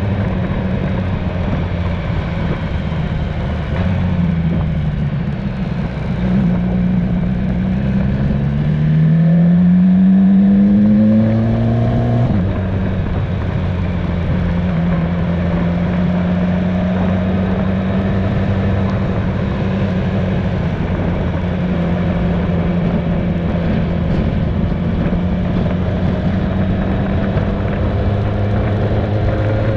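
Motorcycle engine running under way, heard close from the riding bike. It revs up steadily through a gear, drops in pitch at an upshift about twelve seconds in, then holds a steady cruise before starting to rise again near the end.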